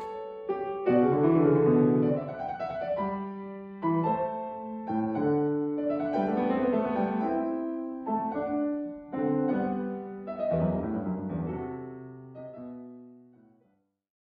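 Background piano music that fades out near the end.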